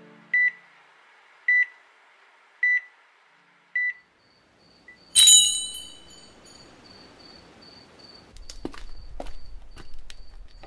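Four short electronic beeps about a second apart, followed by a sudden bright ringing hit about five seconds in that dies away, then faint clicks.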